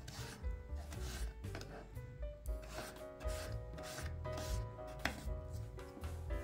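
Kitchen knife dicing potato on a wooden cutting board: a quick run of cuts, about two or three a second, each stroke ending on the board, with one sharper knock about five seconds in.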